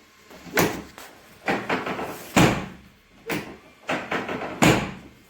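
A series of about six sharp thumps and knocks, roughly one a second, made during chiropractic adjustments of the hips.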